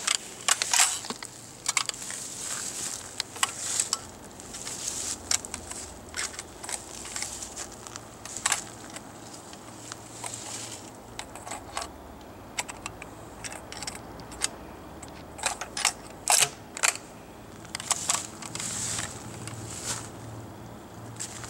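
Westernfield Model 175 12-gauge bolt-action shotgun being handled and loaded: an irregular run of short metallic clicks and rattles as shells go in and the bolt is worked.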